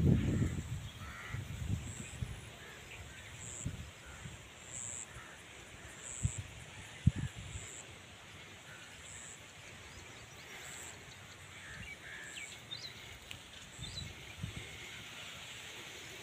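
Outdoor rural ambience: a gust of wind buffets the microphone at the start, then eases. Faint bird calls, possibly crows cawing, and a short high chirp repeating every second or so continue over a soft background hiss.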